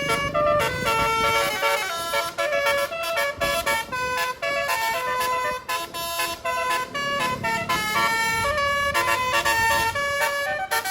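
Tour bus 'telolet basuri' multi-trumpet air horn playing a quick melody of short stepped notes, with a bus engine rumbling underneath.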